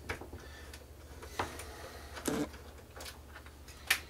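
A few separate clicks and one duller knock of small parts handled on a projector's plastic housing: the lamp-cover screw being taken out and the cover and screwdriver handled.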